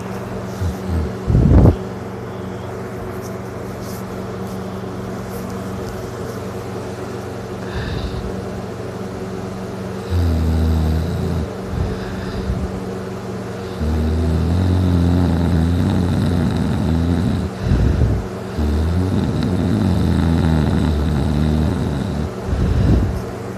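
A man snoring heavily in a deep drunken sleep, lying on his back. Long low snores come from about ten seconds in, with short loud snorts near the start, about eighteen seconds in and near the end, over a steady low hum.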